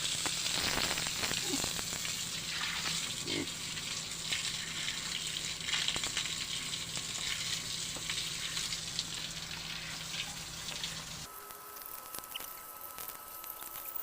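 Steady crackling hiss over a low hum, which cut off abruptly about eleven seconds in, leaving a faint thin tone with light scattered ticks.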